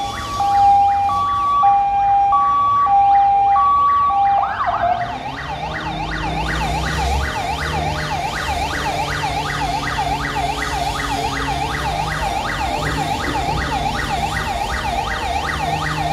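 Emergency vehicle siren sounding a two-tone hi-lo pattern, then switching about four seconds in to a fast yelp that sweeps up and down about four times a second. A low steady hum runs underneath the yelp.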